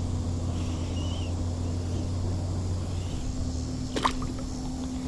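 A steady low rumble, with a faint chirp about a second in and a brief splash about four seconds in as a small largemouth bass is let go into the water.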